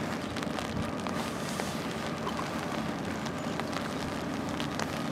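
Low, steady rumble of a distant approaching freight train led by a GE AC44C6M diesel locomotive, under light rain with scattered faint ticks of raindrops.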